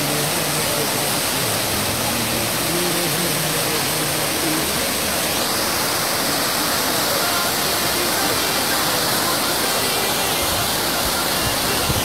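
An about 180-foot waterfall, the water rushing steadily down onto the rocks, heard from close by at its foot as a loud, even roar.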